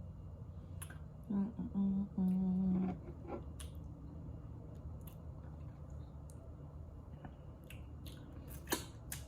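A woman eating with her mouth closed hums three short 'mm-mm-mmm' notes of appreciation about a second in, the last one held longest. Wet mouth clicks and lip smacks from chewing come and go, more of them near the end.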